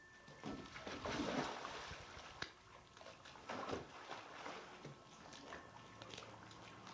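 A person jumping into a swimming pool, a loud splash about a second in, followed by intermittent lighter splashing and sloshing of the water as swimmers move about.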